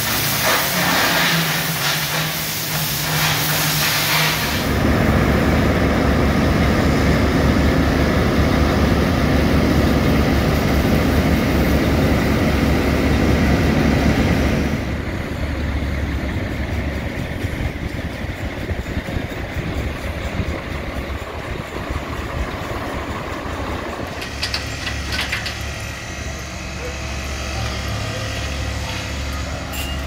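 A steel-cutting torch hisses and crackles for the first few seconds. It gives way to the steady running of heavy diesel engines from concrete mixer trucks and a concrete boom pump, changing in level at several cuts.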